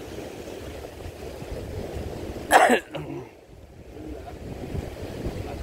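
Steady low wind noise on the microphone over open sea. About two and a half seconds in, a person gives one short, loud cough.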